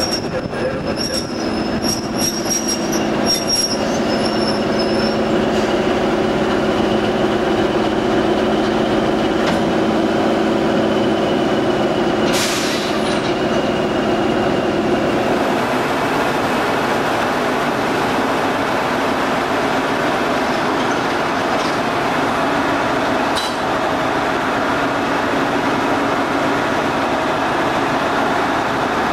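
English Electric 8SVT diesel engine of a CP 1400 Class locomotive running steadily, a low drone with a high whine over it for the first half. Short high squeaks in the first few seconds, and a brief hiss about twelve seconds in.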